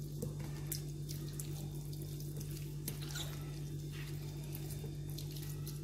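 Hands squishing and rubbing a wet, oily marinade into raw chicken: soft, irregular squelches over a steady low hum.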